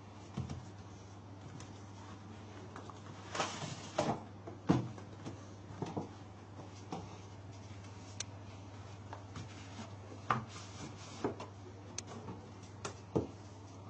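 Packaging and contents being handled during an unboxing: scattered short knocks, clicks and scrapes, the loudest knock about five seconds in, over a steady low hum.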